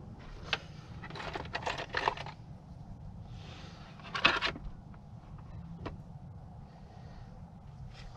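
Things being handled in a car's open cargo area: a sharp click, then a run of rattling scrapes about a second in, another clatter around four seconds in, and a faint tick near six seconds, over a low steady rumble.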